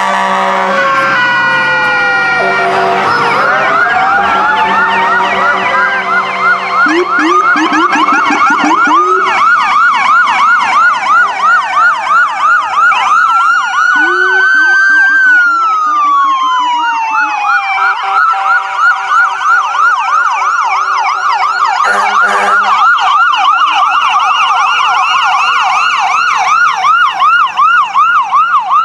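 Several emergency-vehicle sirens from passing fire apparatus sound at once, overlapping fast yelps with slow rising-and-falling wails. A steady horn sounds in the first couple of seconds.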